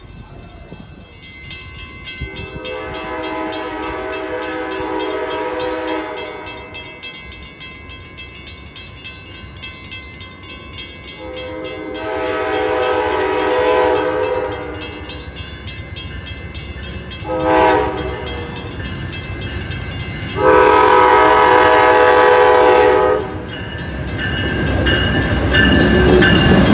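Amtrak P42DC diesel locomotive's horn sounding the grade-crossing pattern: long, long, short, long, over a grade-crossing bell ringing steadily. In the last few seconds the locomotive's engine and wheels rumble past close by.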